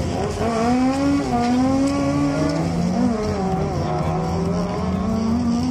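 Race car accelerating hard down a drag strip from the start line, its engine revving with the pitch climbing and dipping briefly about three seconds in.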